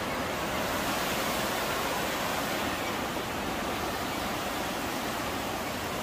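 Steady rush of falling, splashing water, an even hiss without breaks.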